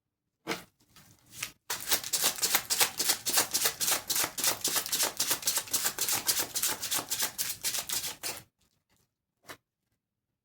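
Deck of tarot cards being shuffled by hand: a rapid, steady patter of card clicks for about six seconds, starting just under two seconds in, with a few softer rustles before it and a single tap near the end.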